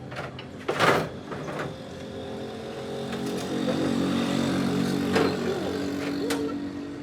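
A sharp knock about a second in, then a steady motor or engine hum that grows louder over a few seconds and eases off near the end, with a couple of light clicks.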